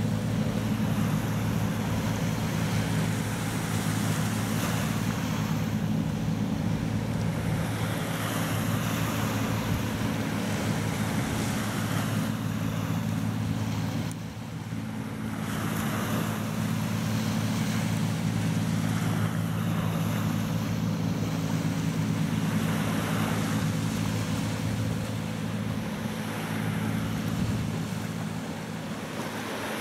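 Diesel engine of a small inshore pot-fishing boat running steadily under way, a stack of low tones, over the rush of its bow wave and wake and wind on the microphone. The sound dips briefly about halfway through.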